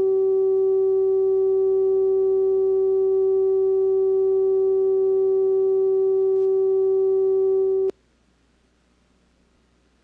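A steady mid-pitched line-up tone recorded at the head of a videotape over the slate, cutting off abruptly about eight seconds in and leaving only faint tape hiss.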